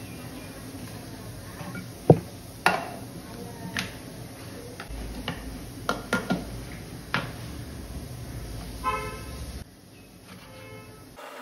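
Kitchen handling sounds: a series of sharp knocks and clacks from utensils and a mixer-grinder jar being set down and handled, with a brief pitched tone near the end.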